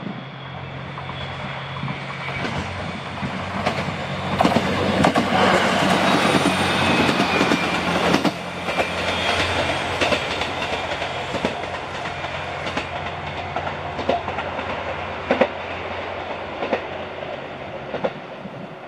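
KiHa 122/127-series diesel railcar running past, its engine droning with wheels clicking over the rail joints. Loudest about five to eight seconds in, then fading as it moves away.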